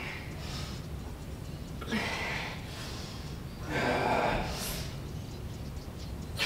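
A woman breathing hard under a loaded barbell during back squats: a few sharp, forceful breaths between reps, the longest and loudest about four seconds in.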